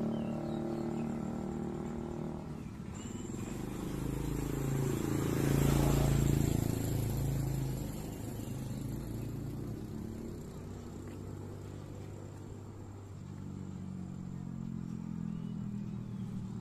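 Motorcycle engines passing on a street. One runs steadily at first, a louder one swells and passes about six seconds in, and another engine grows louder near the end.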